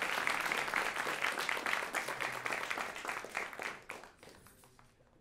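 Audience applauding, with dense clapping that thins out and fades away about four seconds in.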